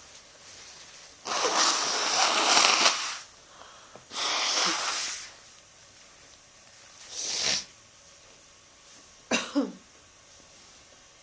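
A person sneezing repeatedly, deliberately induced: two long noisy blasts, a shorter one, and a sharp double burst near the end.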